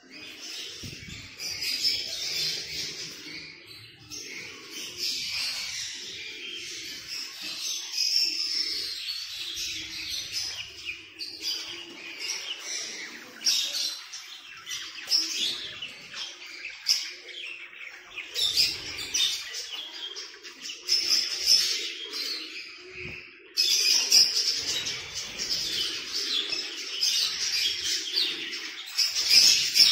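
A flock of small caged birds chirping and twittering in a dense, continuous chatter, with a brief sudden break about three-quarters of the way through.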